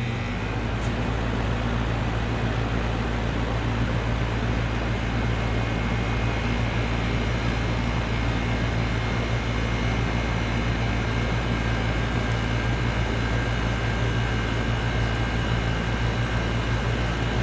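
2011 Goodman central air conditioner's outdoor unit starting up: the compressor and condenser fan kick on at the very start and settle into a steady low hum with fan rush. It sounds rough on this first run of the cooling season, its compressor oil not yet circulating.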